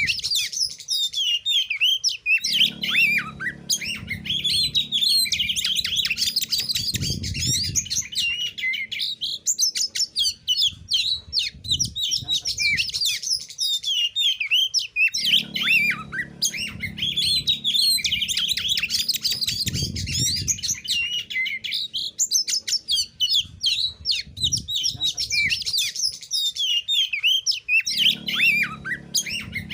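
Oriental magpie-robin (kacer) singing a rapid, varied string of chirps and whistled phrases: the aggressive territorial 'narung' song used to provoke rival males. The same stretch of song repeats about every 12 seconds.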